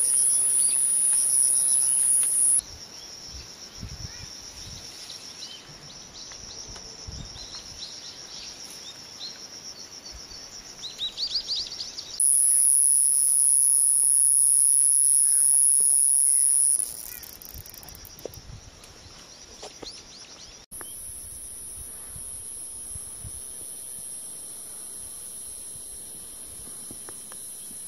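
Iwasaki grass cicada singing a continuous, very high-pitched buzz that cuts off about two and a half seconds in, starts again around twelve seconds for about four seconds, and is followed by a fainter steady high buzz. Short bird chirps sound between the bursts.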